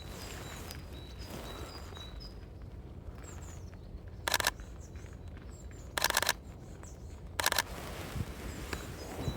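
Sony A6400 camera shutter firing three short bursts of rapid clicks, about four, six and seven and a half seconds in. Small birds chirp with short high calls throughout, over a low steady outdoor rumble.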